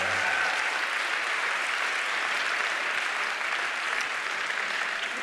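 Large audience in a hall applauding, a steady wash of clapping that eases off slightly near the end.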